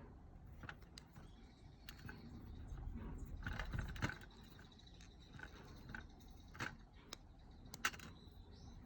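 Scattered light clicks and clinks of small tools and parts being handled, with a few sharper knocks about four, six and a half, and eight seconds in.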